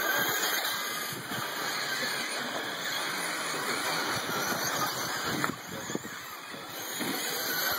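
Several radio-controlled cars racing on a dirt track, giving a steady whir of small motors and tyres on loose dirt.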